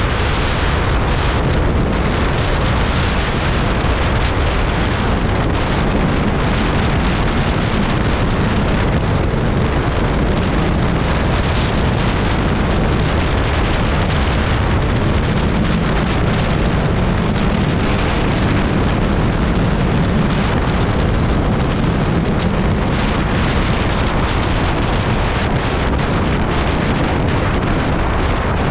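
Steady wind rush on the microphone, with the engine and road noise of a Yamaha Aerox 155 VVA scooter ridden at highway speed.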